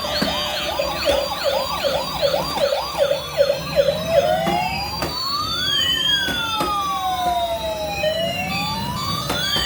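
Electronic police-style siren: a fast yelp, about four sweeps a second, changes about halfway through to a slow wail that rises and falls, with two siren tones crossing each other.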